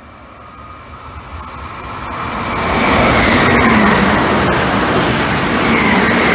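ETR 521 double-deck electric regional train approaching and passing, its rumble growing louder over the first three seconds and then holding, with a whining tone that drops slightly in pitch as it goes by.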